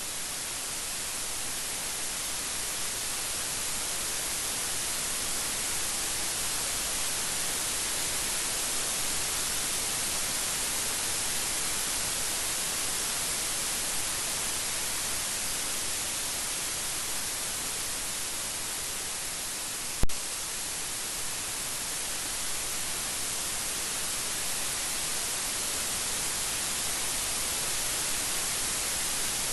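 Steady heavy rain, an even hiss without breaks. About two-thirds of the way through comes one single sharp click, much louder than the rain.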